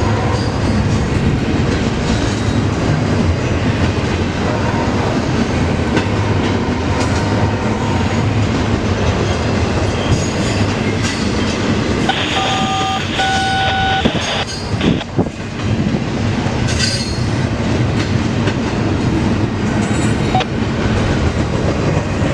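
Intermodal freight cars rolling past at track speed, wheels clacking steadily over rail joints and the grade crossing. A brief two-part tone sounds about halfway through.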